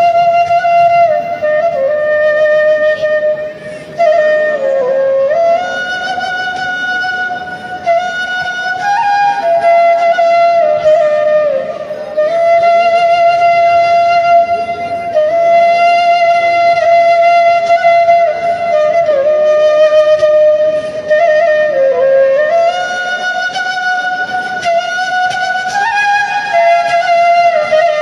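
Background music: a solo flute melody of long held notes with slides between them.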